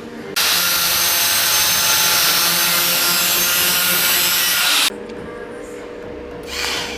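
Power tool grinding metal: a loud, steady, hissing grind that starts and stops abruptly, lasting about four and a half seconds, then a brief second burst near the end.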